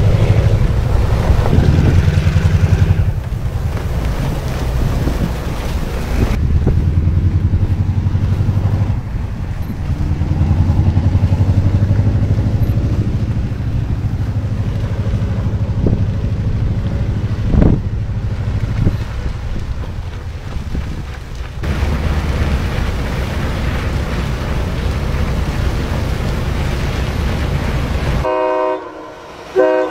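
Low engine rumble and rushing noise of heavy vehicles ploughing through deep snow, breaking off abruptly at several cuts between clips. Near the end a loud multi-tone horn starts blowing.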